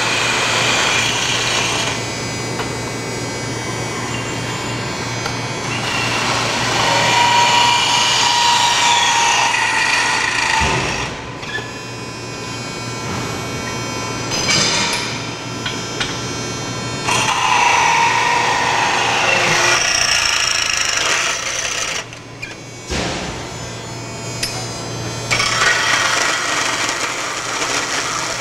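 Cordless drill spinning a hole saw through the end of a metal trike frame tube, cutting the end notch (coping). It cuts in several runs of a few seconds each, with short breaks between them, and the drill's whine shows up in some of the runs.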